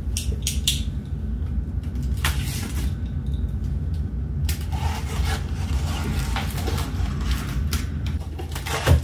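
Cardboard box and parts being handled and shifted: scraping and rustling with scattered knocks, and one louder thump near the end, over a steady low rumble.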